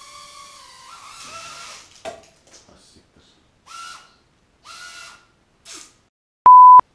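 Mini quadcopter's tiny propeller motors whining in flight. About two seconds in the whine dies away with a sharp knock, and three brief bursts of similar whine follow. Near the end comes a loud steady test-pattern beep, a single pure tone lasting a fraction of a second.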